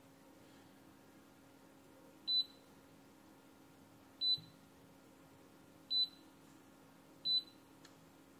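Digital multimeter's continuity beeper giving four short, high beeps at irregular intervals as its probes touch circuit-board pads and tracks; each beep marks a connection between the probed points.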